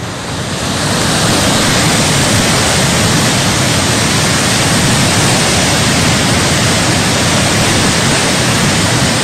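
Muddy flash flood and debris flow pouring down a hillside: a loud, steady rushing of water that swells over the first second and then holds.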